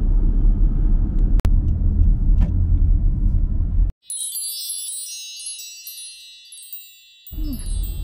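Road and engine rumble heard from inside a moving car. About four seconds in, the car noise cuts out abruptly and a bright, tinkling chime sound effect rings and fades for about three seconds, then the car rumble comes back near the end.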